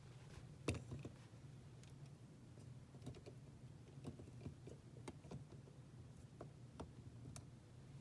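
Near silence with a low steady hum, broken by faint scattered clicks and taps as a small plastic toy truck is handled against a drinking glass; the clearest click comes just under a second in.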